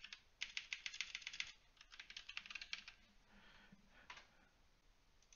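Computer keyboard typing: a quick run of keystrokes in the first second and a half, then a few softer ones, and a single click about four seconds in.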